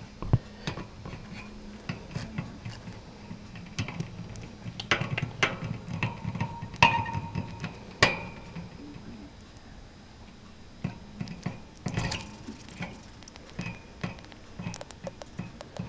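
Pet hamster in her cage: scattered light clicks, taps and rattles, with a couple of brief high squeaks about seven seconds in.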